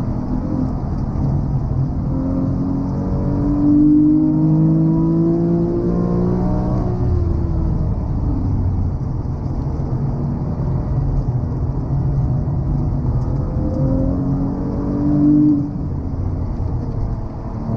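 Porsche 911 GT3's naturally aspirated flat-six, heard from inside the cabin and driven hard on track. The engine note climbs in pitch through the revs about three seconds in and falls away, then climbs again near the end before dropping off sharply.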